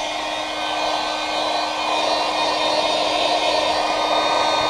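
Handheld hair dryer blowing steadily, with a constant hum under the rush of air, as it dries a freshly applied coat of leather dye on a car seat. It gets a little louder about two seconds in.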